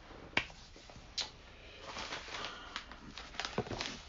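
Faint clicks and soft rustling: two light clicks, then about two seconds of quiet rustling with scattered ticks.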